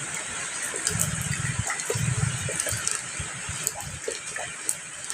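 Steady rain falling, a constant hiss with individual drops ticking close by. A low rumble swells from about one second in and fades out about three seconds in.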